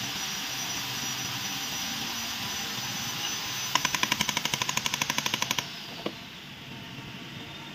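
A steady hiss, then a rapid rattle of sharp mechanical clicks, about ten a second for two seconds, stopping abruptly as a high whine falls away, with one more click just after.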